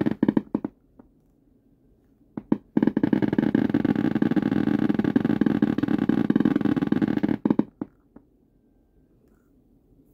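Emulated Geiger counter clicking from an Arduino Uno driving a small 5-ohm speaker through an amplifier, a rapid crackle of clicks whose rate follows the prop's tilt sensor. The crackle stops about a second in, a few single clicks come near two and a half seconds, then a dense run of about four and a half seconds thins to scattered clicks and stops about eight seconds in.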